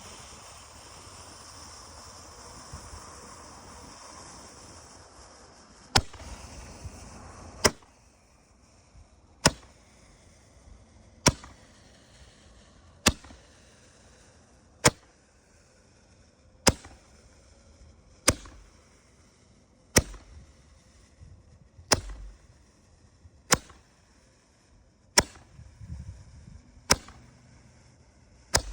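A single Roman candle tube from a Winda 196-shot Master Blaster cake: a steady hiss for about six seconds, then sharp pops at an even pace of roughly one every two seconds, fourteen in all.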